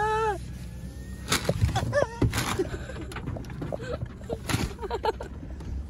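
Ostrich pecking at a paper feed bag held at a car window: several sharp pecks and paper crackles, loudest about a second and a half in.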